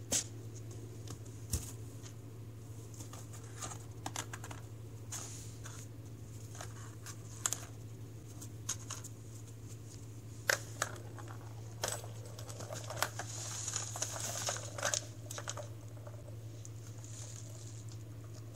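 A cat playing among a cardboard box and loose packing paper: scattered light taps and clicks, and a stretch of paper crinkling and rustling about twelve to fifteen seconds in, over a steady low hum.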